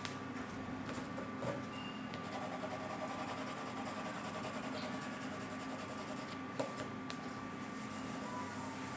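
Faint rubbing of a paper tissue over graphite shading on drawing paper, blending it, against a steady background hum, with a small tap about two-thirds of the way through.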